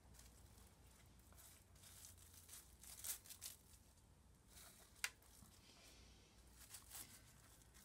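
Plastic cling film crinkling faintly as hands press it down and pull it into creases over wet watercolour paper, with a few sharper crackles about three, five and seven seconds in.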